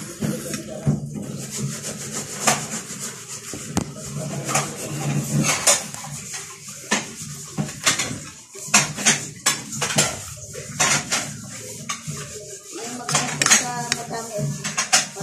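Metal spoon and fork clinking and scraping against a ceramic plate of noodles, in many irregular sharp clicks while eating.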